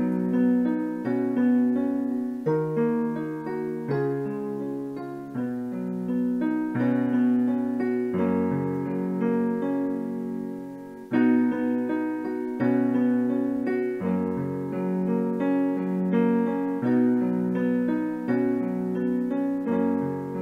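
Slow piano music: a chord struck about every second and a half, each left to ring and fade.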